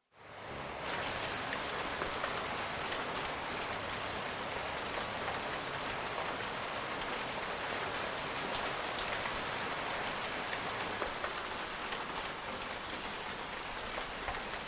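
Heavy rain falling steadily, a dense hiss of drops with fine patter, fading in during the first second.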